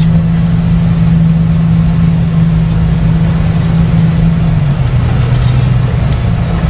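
Car engine and road noise while driving: a steady engine drone that drops in pitch a little before five seconds in.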